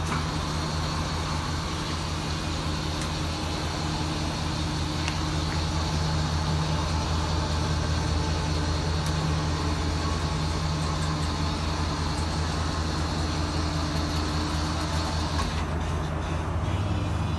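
Vehicle engine idling steadily: an even, low hum.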